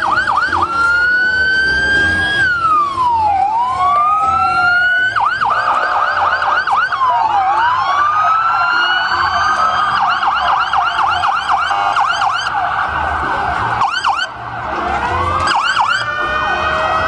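Several emergency-vehicle sirens sounding at once, overlapping: quick repeated yelps over slower rising and falling wails, briefly dropping back about fourteen seconds in before starting up again.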